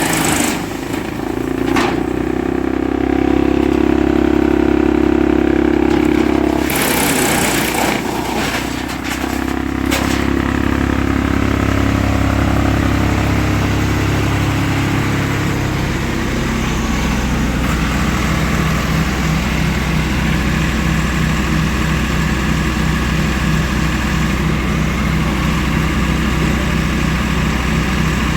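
Wood chipper running, a loud steady machine drone whose pitch shifts down a few times. There are several short bursts of noise in the first ten seconds, and after that it settles into an even, pulsing hum.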